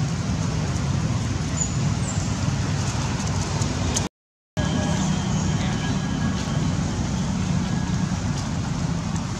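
Steady low rumbling background noise, cut by a brief dropout to silence about four seconds in.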